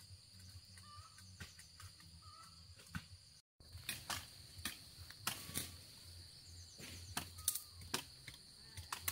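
Irregular sharp snaps and cracks of dry cut branches and brush being handled, coming more often after about three and a half seconds, with faint bird chirps and a steady high-pitched whine behind.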